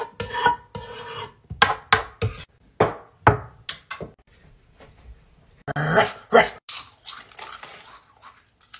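Quick knocks and scrapes of a spatula stirring and clattering around a cooking pot, followed about six seconds in by a short, louder noise.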